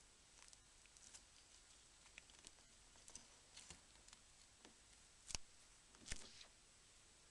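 Faint small clicks and light scrapes of hand tools working on a Nokia E65 mobile phone's small parts, with two sharper clicks about five and six seconds in.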